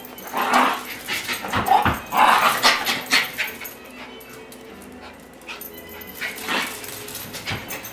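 A dog yipping and barking in a run of short bursts over the first three seconds or so, then twice more, briefly, near the end.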